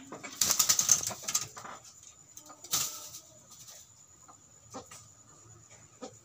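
Chickens scuffling in a fight: a loud flurry of wing flapping lasting about a second, a second shorter flurry about halfway through, then a few faint taps.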